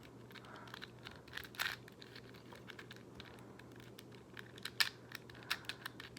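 Faint, irregular plastic clicks and rattles of a Rubik's cube being twisted by hand, with small clusters of clicks about a second and a half in and again near five seconds in.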